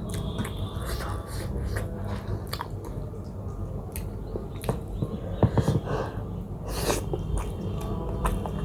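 Close-miked chewing of buff momo dumplings, with irregular mouth clicks and bites.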